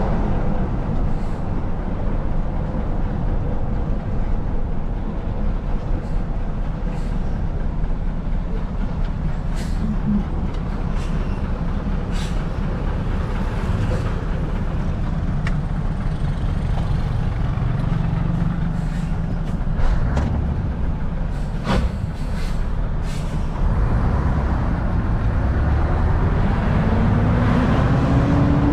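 Scania 144's V8 diesel engine running steadily under way, heard from inside the truck cab, with a few brief hisses and clicks such as air-brake releases. Near the end the engine revs rise as the truck pulls away, then ease off.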